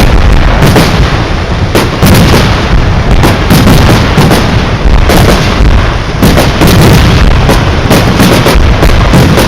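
Fireworks going off in a loud, continuous barrage: shell bursts and booms follow one another several times a second, overlapping with no pause and carrying a heavy low rumble.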